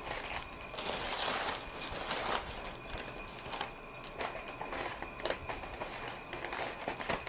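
Close-miked chewing of a lettuce-wrapped sandwich: crunching and crackling, densest about one to two and a half seconds in, with many short clicks.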